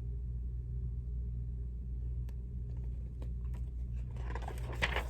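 Steady low hum with a few faint clicks, then from about four seconds in the rustle of a book page being turned.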